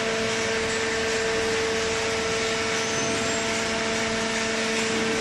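Horizontal waste paper baler machine running with a steady, constant-pitched mechanical hum and whine.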